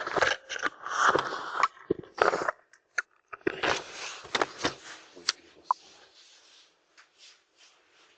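Irregular scraping, rustling and clicking close to a doorbell camera's microphone, dying down after about five seconds to a faint hiss with a few scattered clicks.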